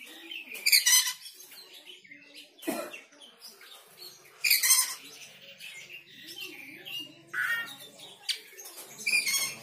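Oriental magpie-robin (kacer) giving about five loud, harsh, rasping bursts of song, roughly two seconds apart, with quieter chirps between. This is agitated, 'emotional' calling of the kind that sets other magpie-robins off singing.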